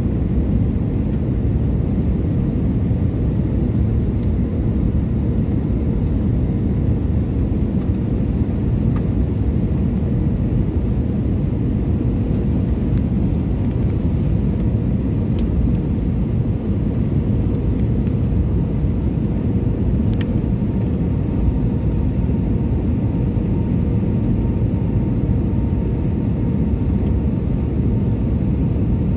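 Jet airliner cabin noise on approach, heard from a window seat: a steady low rumble of engines and airflow with a faint even hum. A second, higher hum comes in about two-thirds of the way through.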